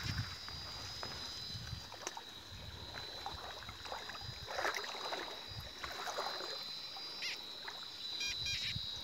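Water swishing and sloshing as a person wades through a shallow river, over a thin steady high whine. Near the end a Tianxun metal detector gives a few short electronic beeps, signalling a target under the water.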